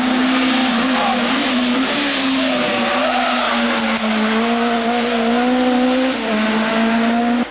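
Rally car engine held at high revs, a loud, near-steady note with a slight drop in pitch about six seconds in, over heavy mechanical and road noise. It cuts off abruptly at the end.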